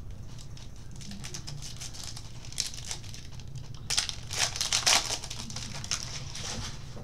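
A foil trading-card pack wrapper crinkling and tearing as it is ripped open and handled, with cards rustling against each other. The loudest crinkles come about four to five seconds in.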